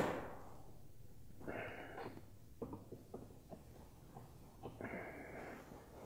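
A sharp click, then a few short, faint scrapes and small clicks as a flathead screwdriver works a plastic fuel-line quick-connect back and forth on a fuel filter to release its retaining clip.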